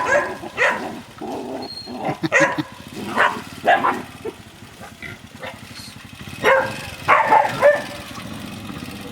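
A dog barking in short calls, several times, with a pause midway.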